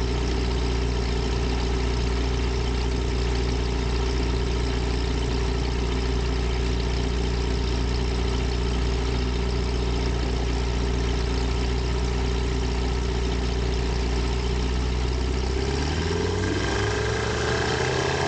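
Zenith STOL CH750 light aircraft's engine and propeller idling steadily on the ground, then revving up in the last couple of seconds, the pitch rising.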